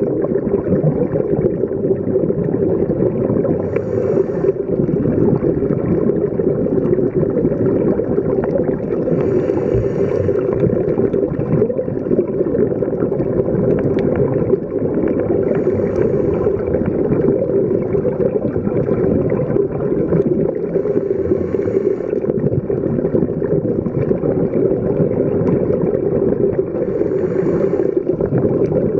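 Underwater sound of a scuba dive: a steady dull rushing, with a hissing burst of exhaled bubbles from the diver's regulator about every six seconds, five times in all.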